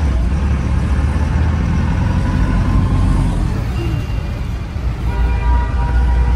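Truck's diesel engine running under way, with road noise, heard inside the cab; a faint higher tone joins about five seconds in.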